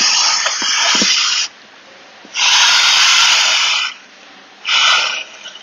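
A person blowing hard by mouth into the air valve of an inflatable water-filled fitness bag, inflating it with about three long exhaled breaths separated by short pauses.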